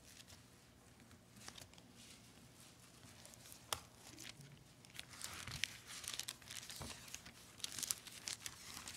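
Thin Bible pages being leafed through close to a pulpit microphone: a faint papery rustle with sharp crackles, sparse at first and busier from about halfway.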